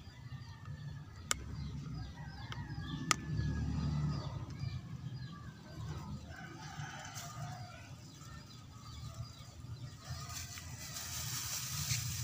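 A rooster crowing, with two sharp clicks in the first few seconds. Near the end a plastic bag crinkles as it is handled.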